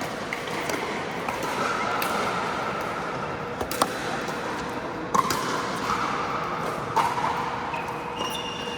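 Pickleball rally: sharp pops of paddles striking the hollow plastic ball, the loudest three about a second and a half apart in the second half, over the steady background of an indoor court.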